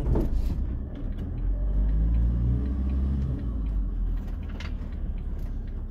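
Ford Transit van's engine heard from inside the cab, pulling under way. The engine note rises for a couple of seconds and then drops back about halfway through, as the gears are worked, over a steady low road rumble.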